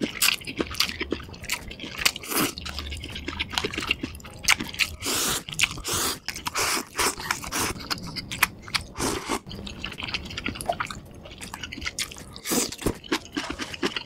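Close-miked mouth sounds of eating spicy instant noodles and shrimp: slurping noodles in, then wet chewing and smacking, full of irregular clicks.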